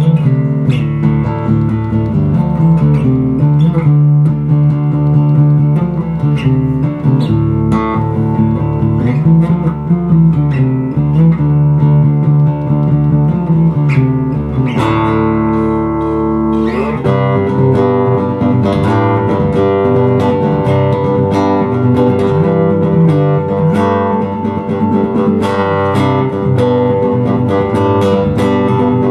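Electric bass guitar played fingerstyle in a jam in the key of D. Plucked notes run continuously, with held notes and an upward slide in pitch around the middle before busier playing resumes.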